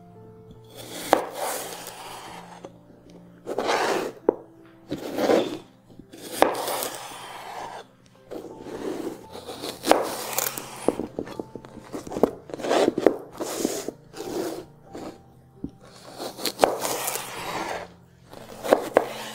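Chef's knife slicing through small cucumbers on a hard cutting board: repeated crisp crunching strokes through the firm flesh, each ending in a click of the blade against the board. Quiet background music plays underneath.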